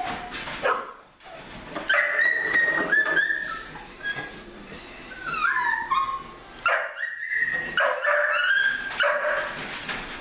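Young puppies whining and yelping: a string of short, high-pitched cries, some sliding down and back up in pitch.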